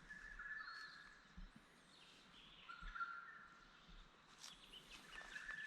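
Faint birdsong over near-silence: three drawn-out whistled notes, at the start, about halfway and near the end, with a few brief high chirps between them.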